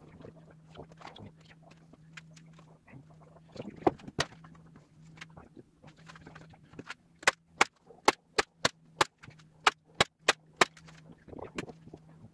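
Staple gun firing a quick run of about a dozen sharp snaps, roughly three a second, fastening upholstery fabric to an armchair cushion. Before the stapling comes soft rustling as the fabric is smoothed and handled.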